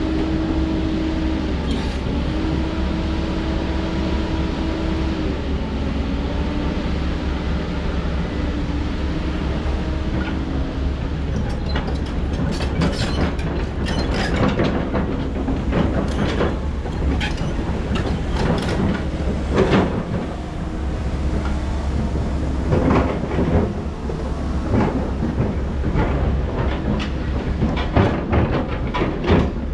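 Heavy construction machinery, an excavator, running with its diesel engine droning and a hydraulic whine that steps up and down in pitch. About twelve seconds in, a run of irregular metallic clanks and knocks sets in and goes on over the engine.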